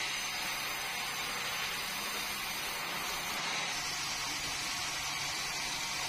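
Vertical band sawmill running steadily: an even, high rushing whir from the spinning blade and drive, with a faint low hum underneath and no cut under way.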